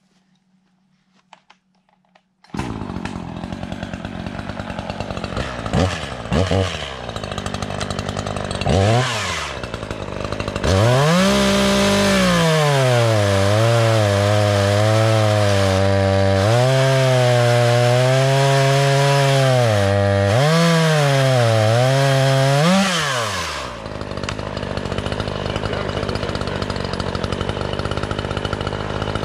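Echo CS-3510 two-stroke gas chainsaw. Its engine comes in abruptly a couple of seconds in and runs at a low speed with a few short revs. It then runs at full throttle cutting through a log for about twelve seconds, its pitch sagging and recovering several times as the engine bogs under the load, before dropping back to a lower steady run.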